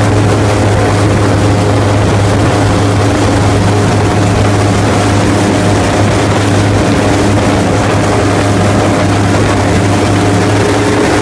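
Airboat's engine and open air propeller running steadily and loudly, with a strong low hum and a wide rushing hiss over it.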